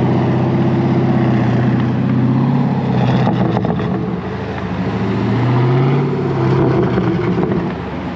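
Dodge Challenger Scat Pack's 6.4-litre (392) HEMI V8 idling through a straight-piped exhaust, the revs swelling once and settling about five seconds in.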